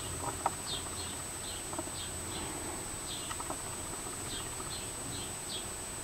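House sparrows chirping: a run of short, falling chirps, irregularly spaced at about two a second.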